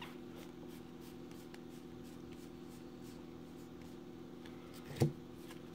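Faint rustling and light ticks of a stack of baseball trading cards being slid apart and fanned in the hands, with a steady low hum underneath. A sharper click comes near the end.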